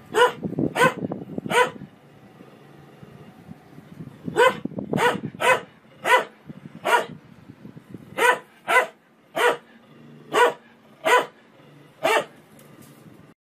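A dog barking at a front-loading washing machine in short, sharp barks: three in quick succession at the start, then about a dozen more at uneven gaps of half a second to a second. A faint steady low hum runs underneath, fitting the washing machine running.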